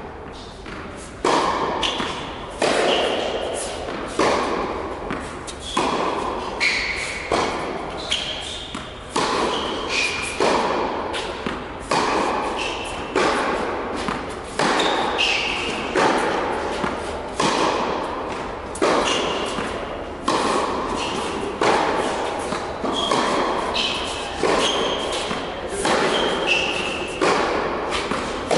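Tennis ball struck by rackets and bouncing on an indoor hard court in a steady rally, a sharp pock about every second and a half, echoing in the large hall, with short high squeaks between the shots.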